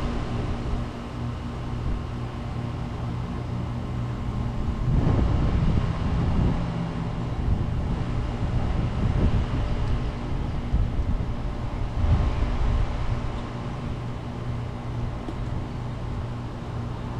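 Outdoor air-conditioning condenser units running: a steady electrical hum from the compressors under the rush of their fans, with gusts of wind on the microphone.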